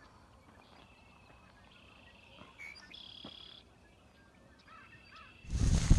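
Faint bird calls and chirps in quiet open-air surroundings, then, about five and a half seconds in, a loud rushing noise starts abruptly.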